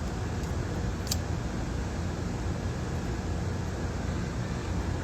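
Steady low rumble and hiss of background noise, with one faint click about a second in.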